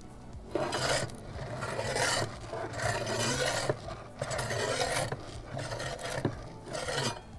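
Perforated metal pizza turning peel scraping across the oven's stone baking floor in several rough strokes as it is slid under the pizza and turns it.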